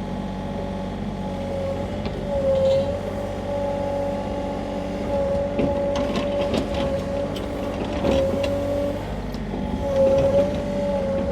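Sany mini excavator's diesel engine running steadily, with a hydraulic whine that sags and recovers in pitch several times as the arm is worked. There are a few short knocks around the middle.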